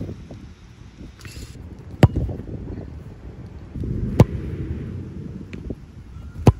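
Soccer ball struck hard with the boot three times, about two seconds apart, each a single sharp thud.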